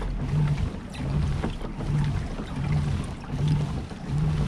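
Kayak under way, driven in a steady rhythm: a low hum that swells and fades about twice a second, over water and wind noise.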